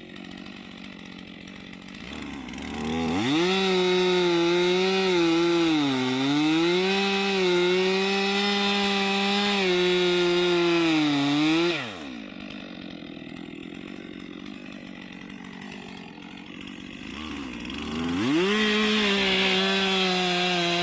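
Two-stroke chainsaw idling, then run up to full throttle and cutting into a tree's face notch for about nine seconds, its pitch sagging briefly under load partway through. It drops back to idle, then revs up and cuts again near the end.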